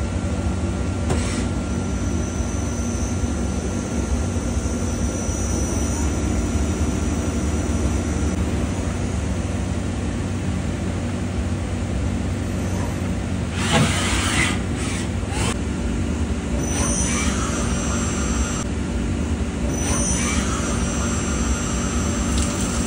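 CNC lathe running with its spindle turning: a steady machine hum, a cluster of sharp, harsh noises a little past the middle, and two short rising whines near the end.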